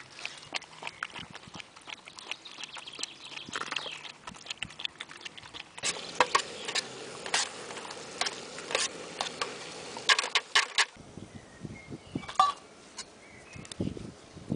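A dog lapping water from a travel bottle's fold-out trough, a patter of small quick ticks. About six seconds in, a metal spoon scrapes and clinks against a steel pan of frying lamb and vegetables on the camp stove over a steady hiss, which stops about eleven seconds in, leaving a few light clicks.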